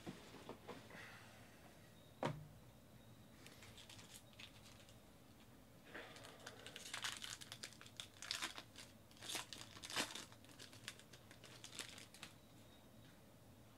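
Foil trading-card pack wrapper being handled and torn open, crinkling in a string of short bursts from about six seconds in until near the end. A single sharp tap comes about two seconds in.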